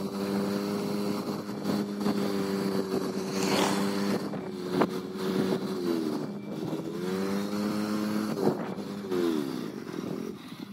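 Vehicle engine running while driving along a road, a steady hum over road and wind noise. About six seconds in its pitch drops and climbs back up, and it falls again near the end.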